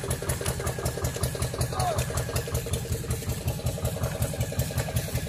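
Small motor engine, such as that of an outrigger pump boat, running steadily with a fast, even beat.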